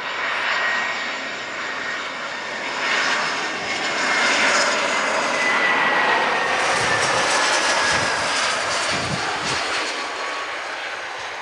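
Airbus A320's twin jet engines at approach power as the airliner passes low on final approach: a steady rushing jet noise with a whining tone that slowly falls in pitch as it goes by, loudest midway and fading near the end.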